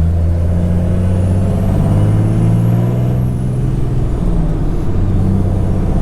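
Dodge 6.7 Cummins inline-six turbo diesel running while driving, a steady low drone that shifts in pitch a couple of seconds in. A faint high whistle from its S367 turbocharger rises and falls over the first few seconds and starts to rise again near the end.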